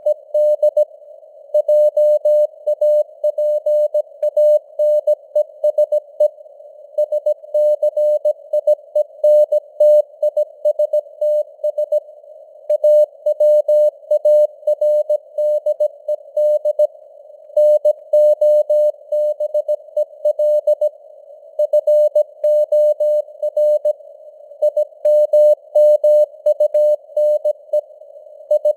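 Morse code (CW) at 17 words per minute: a single tone of about 600 Hz keyed on and off in dots and dashes. It sits in a narrow band of simulated radio static, with the signal strength fading up and down (QSB).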